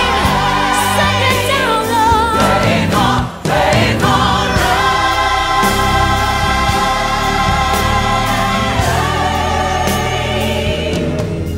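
Background music: a choir singing long held notes, with a brief drop about three seconds in.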